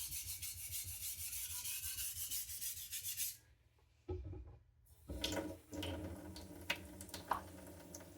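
Steel knife blade ground back and forth on a whetstone in quick, gritty scraping strokes, reprofiling the edge to a much lower angle. The grinding stops after about three seconds, followed by a pause and then light clicks and handling noises.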